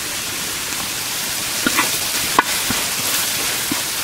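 Chopped onions, ginger, garlic and spice powders frying in oil in a large metal pan: a steady sizzle, with a few sharp clicks of a metal ladle against the pan near the middle.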